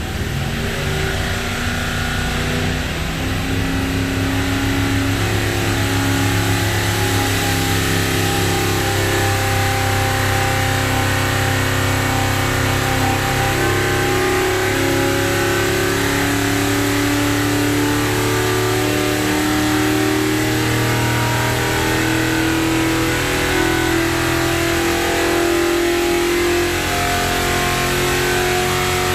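1969 Corvette racing V8 running on an engine dyno in a long, steady run under load. It builds over the first few seconds, then holds a fairly steady pitch.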